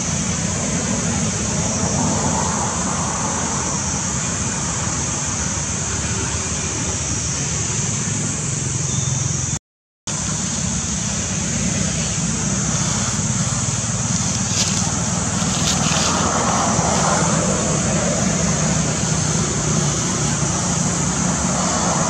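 Steady outdoor background noise: a low rumble with a steady high-pitched hiss over it, cutting out completely for a moment about ten seconds in.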